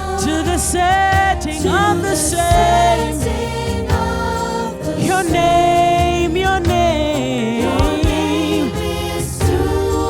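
Worship music: singing with wavering, gliding notes over a band's sustained chords and steady bass.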